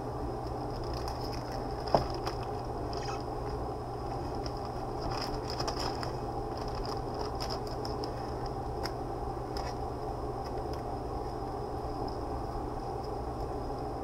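Steady low hum and hiss of background noise, with a sharp click about two seconds in and faint scattered crackles through the middle.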